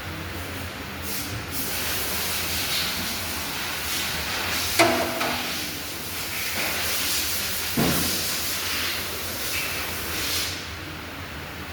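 Mitsubishi Outlander engine running with a steady low hum and a hiss that swells and fades, with two sharp knocks about five and eight seconds in; the owner traces the unusual noise to leaking injectors 2 and 3.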